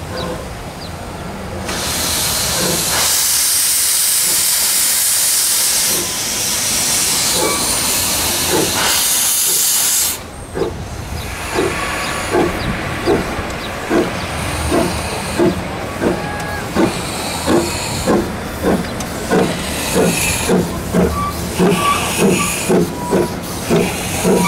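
Narrow-gauge 1922 Vulcan 2-4-0 steam locomotive letting off a loud hiss of steam for about eight seconds. It then starts away, its exhaust chuffs quickening from about one and a half to about two and a half a second.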